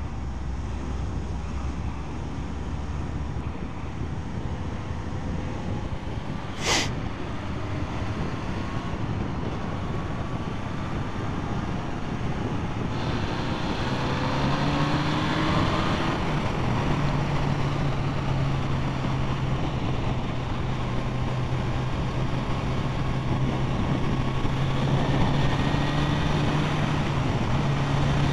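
Motorcycle being ridden on the road: engine running under wind and road noise, with the revs rising as it speeds up about halfway through, then a steady engine drone. A single sharp click about seven seconds in.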